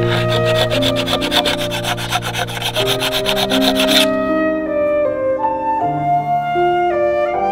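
Quick, rhythmic scraping of a metal blade along palm-bamboo fan ribs, about six strokes a second, stopping abruptly about four seconds in. Background music with sustained notes plays throughout.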